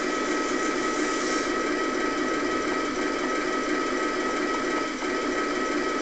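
Small electric gearmotor of an RC model tank's barrel-elevation drive whining steadily as the gun is lowered by the transmitter stick, running toward its limit switch.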